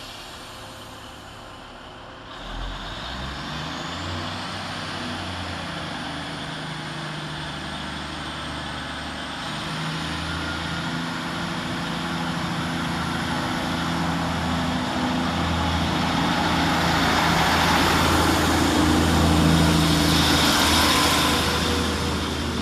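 Class 150 Sprinter diesel multiple unit pulling away from the platform: about two seconds in its underfloor diesel engines open up with a high whine rising in pitch, and the engine note grows steadily louder as it accelerates, peaking near the end.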